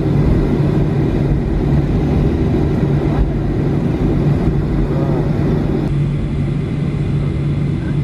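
Steady cabin drone of a Boeing 737-500's CFM56-3 engines at taxi idle as the airliner rolls along the apron, heard from inside the cabin at a window seat, with a low hum running under it.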